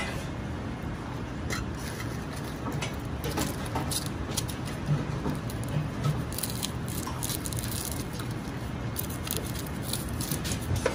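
Dry onion skins crackling and rustling as they are peeled off by hand and with a small knife, with scattered short crisp clicks throughout. A steady low hum runs underneath.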